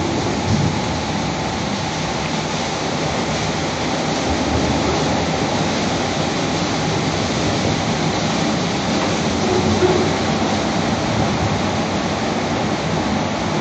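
Automatic car wash running: large rotating brushes scrubbing a car under water spray, a steady rushing of water mixed with machine noise.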